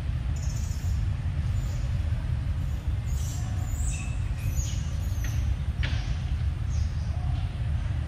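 Outdoor forest ambience: a steady low rumble with short, high chirps of birds scattered through it.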